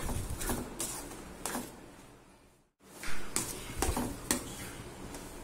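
Steel ladle stirring and scraping through a thick, sticky mixture of cooked raw mango and jaggery in a stainless steel kadai, with repeated short scrapes and knocks of the ladle against the pan. The sound cuts out briefly a little under three seconds in, then the stirring goes on.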